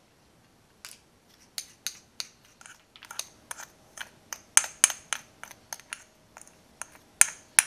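Metal spoon tapping and scraping against small ceramic dishes, knocking salt and then ground pepper out over chopped meat in a stainless steel bowl. The sound is a string of sharp, irregular clinks, a few a second, louder from about halfway through.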